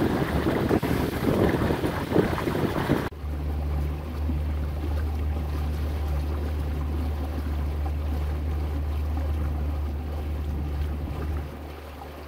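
Water rushing along a moving boat's hull, with wind on the microphone, for about three seconds. Then an abrupt change to the steady low drone of the boat's 2004 Yamaha four-stroke outboard running under way, which eases off slightly near the end.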